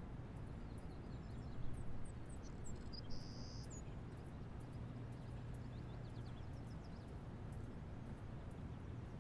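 Quiet background ambience with a low steady hum and faint bird chirps, a cluster of them about three seconds in and a few more around seven seconds.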